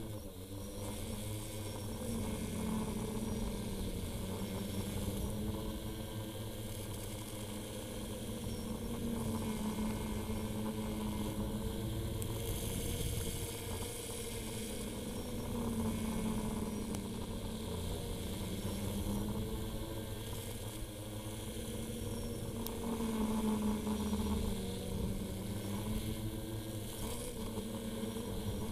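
Multirotor drone's electric motors and propellers whirring steadily in flight, the pitch drifting up and down as the motors change speed.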